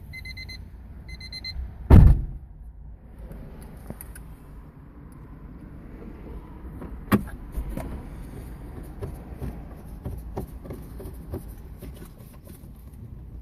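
Car's warning chime beeping a few times at the start and stopping, then a car door shutting with a heavy thump about two seconds in. After it a steady low rumble with scattered clicks runs on.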